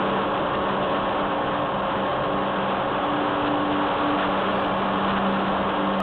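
Rushing wind on the microphone of a camera riding on a small RC flying wing in flight, with the steady hum of its electric motor and propeller underneath.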